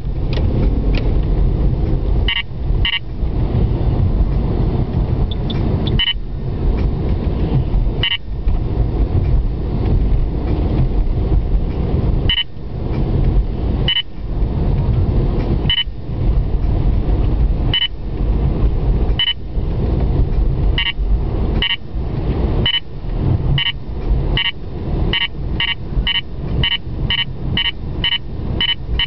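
Car cabin road and engine noise while driving, a steady low rumble. Short high beeps cut in every couple of seconds and come faster, about two a second, near the end.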